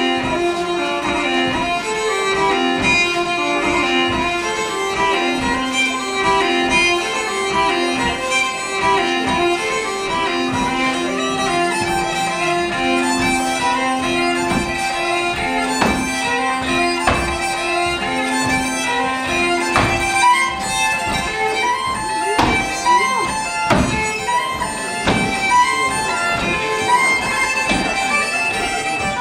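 Solo fiddle playing a Norwegian folk dance tune. From about halfway through, sharp thumps of dancers' feet stamping on the stage come in over the tune.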